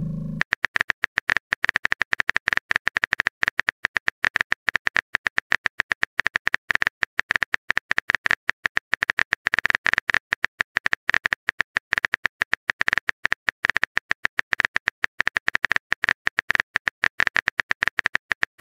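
Rapid phone-keyboard typing clicks, about ten a second and very even, a texting sound effect marking a long message being typed.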